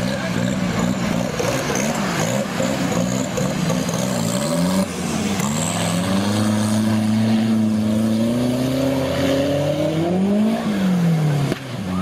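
Engines of modified off-road 4x4s revving hard as they drive through a river: the revs swing up and down several times, then hold high and climb, with a last rise and drop near the end. Water splashing from the wheels runs underneath.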